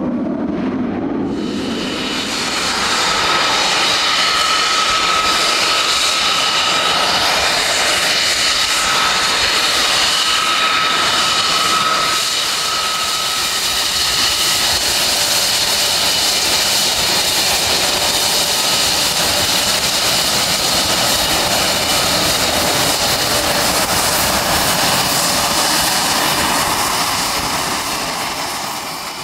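Panavia Tornado's twin RB199 turbofans running at taxi power: a loud, steady jet whine with several high held tones over a rushing hiss. In the first couple of seconds a lower jet rumble takes its place.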